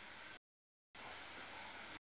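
Faint, steady outdoor background hiss in short snippets about a second long. Each snippet starts and stops abruptly, with dead silence between them: one ends about half a second in and the next begins about a second in.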